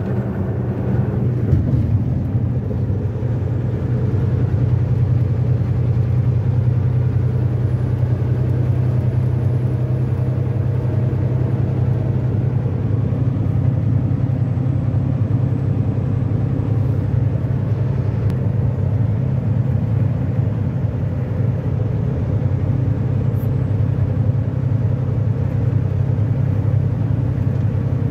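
Steady road and engine noise inside a truck's cab while cruising at highway speed, a continuous low rumble.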